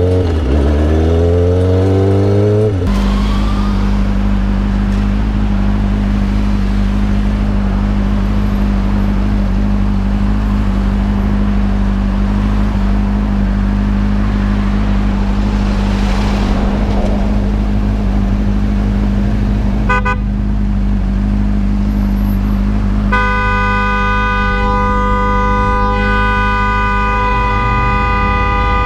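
Motorcycle engine rising in pitch as it accelerates for the first few seconds, then a sport bike's engine idling steadily at a stop. Around 20 s a car horn gives a few quick taps, and from about 23 s it blares in one long continuous honk: an impatient driver honking at the stopped motorcyclist on a green light.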